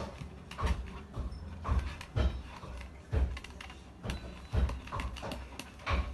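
A spoon stirring glue and glitter for slime in a small pot, scraping and knocking against the pot's sides in short, uneven strokes about once or twice a second.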